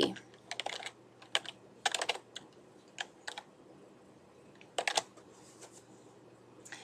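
Computer keyboard being typed on: scattered keystroke clicks in short irregular clusters, stopping about five seconds in.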